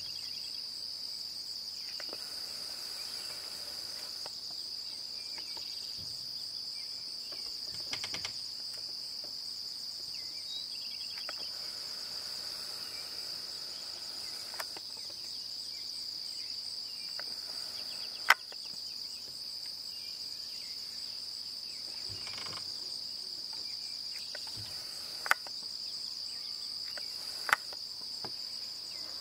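A steady, high-pitched chorus of crickets chirring without a break. A few sharp clicks stand out over it, the loudest a little after halfway and two more near the end.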